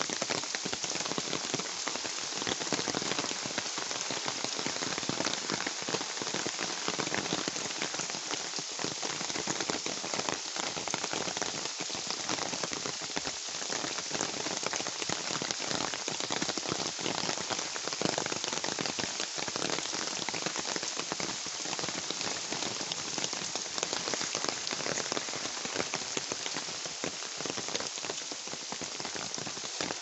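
Steady rain falling, with many separate drops heard as sharp little taps over an even hiss.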